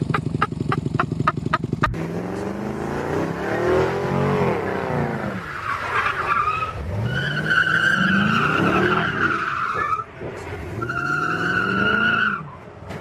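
Car engines revving up and down in repeated rising and falling sweeps, with two long tyre squeals, one starting about seven seconds in and one near the end.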